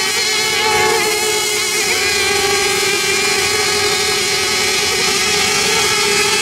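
Radio-controlled racing boats running flat out, several high-pitched motor whines overlapping and wavering slightly as the boats pass, with no break.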